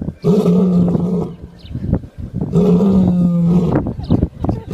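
Lion snoring while asleep: two long snores of about a second each, with shorter breaths between them.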